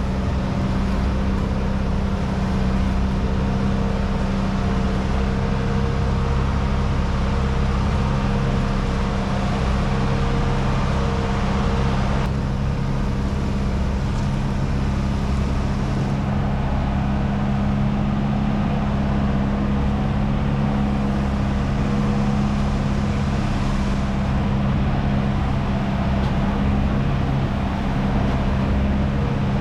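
Boat engine running at a steady speed: a constant low drone with no change in pitch.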